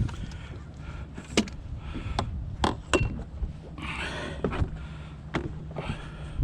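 Scattered sharp clicks and knocks from handling a fish and its hook as it is unhooked in a boat, with a couple of breathy hissy bursts, over a steady low hum.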